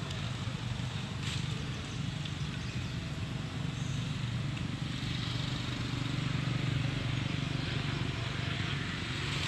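Steady outdoor background noise with a continuous low hum.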